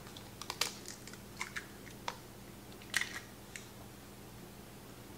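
Eggs being cracked by hand over a steel stand-mixer bowl: a scatter of light taps and eggshell crackles, the sharpest about three seconds in.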